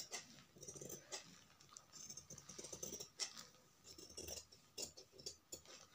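Scissors snipping through folded cotton lining cloth: a run of faint, irregular short snips as the blouse back piece is cut out along chalk lines.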